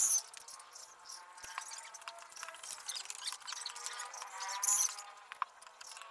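A scraper spreading white wood glue across a wooden slab, making light scraping strokes, with a louder scrape about three-quarters of the way in. A short loud noise comes right at the start.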